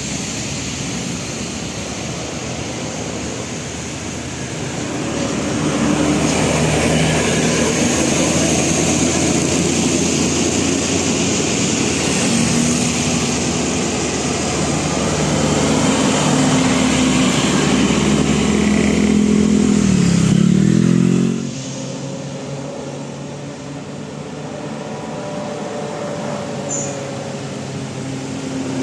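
Motor vehicles passing on a road, engines running and accelerating with tyre and road noise. Near the two-thirds mark one engine's pitch dips and climbs again, then the sound falls off.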